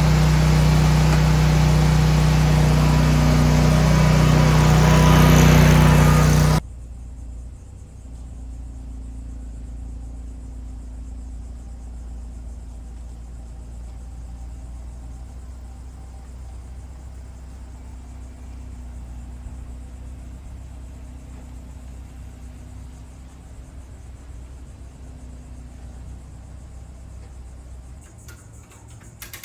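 Zero-turn mower engine running steadily and loudly, rising a little before it cuts off abruptly about six and a half seconds in. A much quieter steady low rumble follows.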